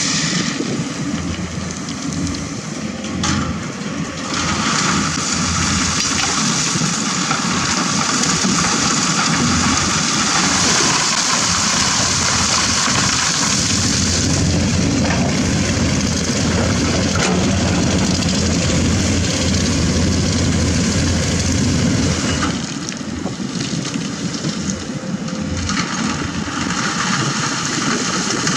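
Komatsu PC200 excavator's diesel engine working under load while its bucket dumps wet river sand and gravel into a dump truck. The load pours out as a long, steady rush of falling stones, eases for a few seconds, then starts again near the end as another bucket is emptied.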